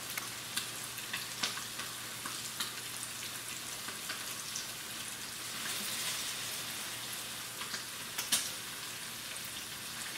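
Ribeye steak frying in butter and olive oil in a pan: a steady sizzling hiss with scattered spitting pops, swelling a little around the middle, with the sharpest pop near the end.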